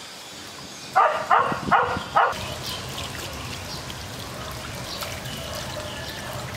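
Water from a hose pouring over a metal CVT pulley part and splattering onto the ground, running steadily from a little after two seconds in. About a second in, four short loud animal calls come in quick succession.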